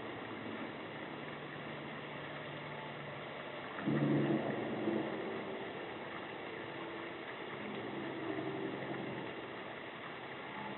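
Steady outdoor hiss with a low engine hum that swells suddenly about four seconds in, fades, and rises again more gently around eight seconds.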